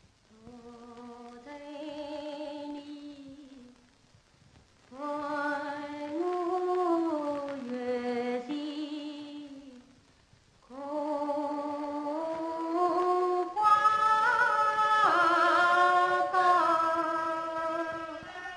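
A woman singing a slow Yue opera (Shaoxing opera) aria line in long, drawn-out notes that glide in pitch. There are three phrases with short breaks between them, and the last phrase is the loudest.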